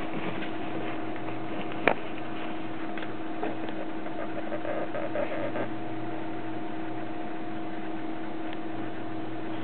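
A steady hum with a few steady pitches in it, with scattered light clicks and one sharp click about two seconds in.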